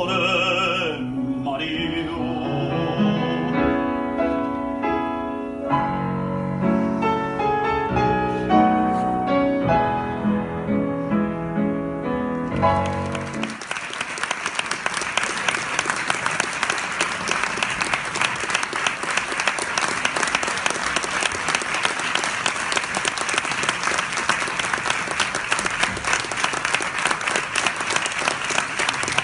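A baritone's last sung note, held with vibrato, ends about a second in; a grand piano plays on alone; a little before halfway the audience breaks into applause that keeps going.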